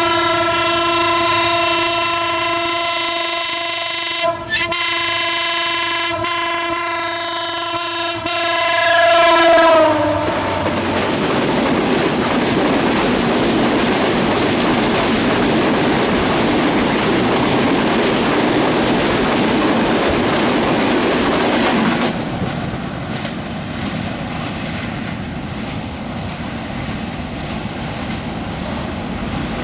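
Diesel locomotive air horn sounding a long blast, with a brief break about four seconds in, its pitch dropping as the locomotive passes about ten seconds in. The coaches then rush past with wheels clattering on the rails, and the sound eases a little after about twenty seconds as the train moves away.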